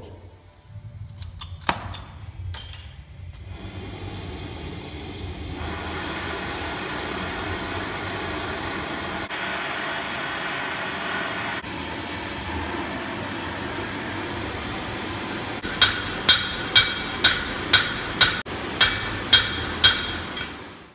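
After a few clicks, a gas torch flame hisses steadily as it heats the end of a steel rod. Near the end a hammer strikes the hot rod on a steel anvil about nine times, roughly two blows a second, each ringing.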